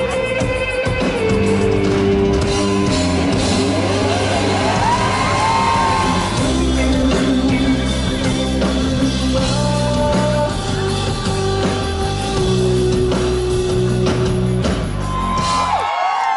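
Live rock band playing through the PA: a male singer over electric guitar, bass and drums. The music cuts off suddenly near the end.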